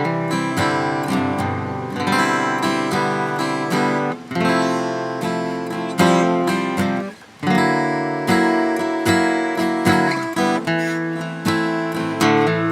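Acoustic guitar strummed and picked in an instrumental break of a song, with a brief break in the playing about seven seconds in.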